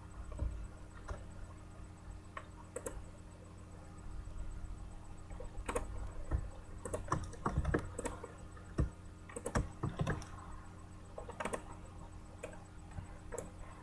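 Sparse, irregular light clicks and taps, clustering in a few short runs, over a low steady hum.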